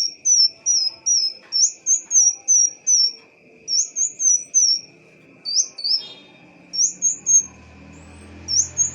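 A sunbird singing: a rapid series of high, downward-sliding chirps, about three a second, in phrases broken by short pauses. A steady faint high whine runs underneath, and a low rumble comes in near the end.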